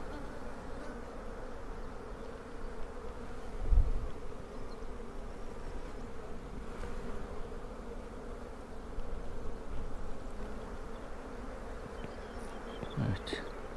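Honeybees humming steadily on an open hive during a frame inspection, with one brief low bump about four seconds in.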